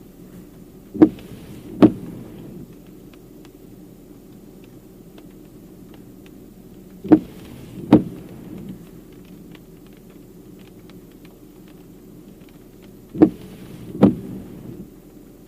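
Intermittent windshield wipers on a vehicle: three sweeps about six seconds apart, each a pair of sharp thumps under a second apart as the blades go out and back. A steady low hum of the vehicle runs underneath.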